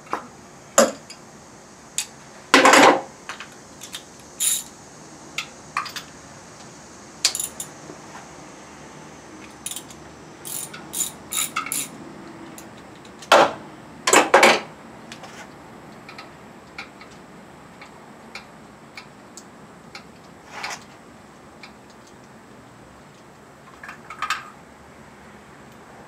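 Metal hand tools and engine parts clinking and clicking in short, scattered knocks while a spark plug wire and spark plug are pulled from a car engine. The loudest clanks come about three seconds in and again around the middle.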